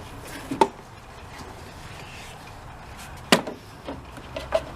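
A few sharp clicks and knocks as rubber weather stripping is pulled off the top of a truck's cowl panel. The loudest snap comes just after three seconds in, with smaller taps near the end.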